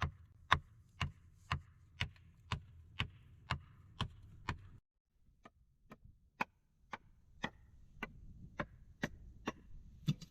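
Wood being chopped with an axe or hatchet: sharp, regular blows about two a second, with a brief break about halfway.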